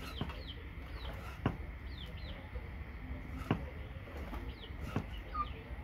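A cleaver chopping raw beef on a wooden chopping block: a handful of separate, irregularly spaced knocks. Birds chirp with short, high downward notes in the background.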